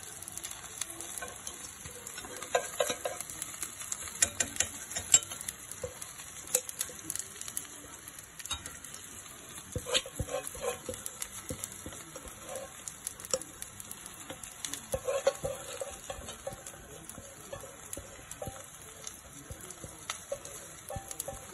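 Egg-and-vegetable batter sizzling steadily as it fries in a pan, with bursts of scraping and tapping from a silicone spatula and chopsticks against the pan.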